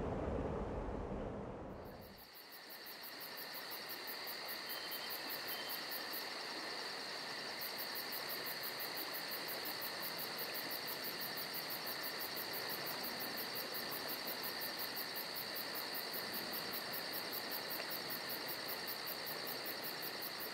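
Crickets chirring: steady high trills with a fast, even pulsing above them. A low rumble fades out in the first two seconds as the insects come in.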